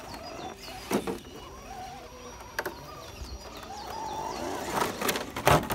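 A small RC rock crawler's electric motor whines in short spurts as it crawls over a boulder. Its tyres and chassis knock against the rock several times, and the loudest knock comes near the end. Birds chirp in short falling notes in the background.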